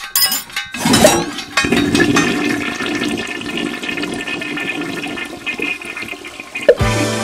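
A toilet flushing: a long, even rush and swirl of water lasting several seconds, opening with a brief metallic clinking. Music with a steady low note comes in near the end.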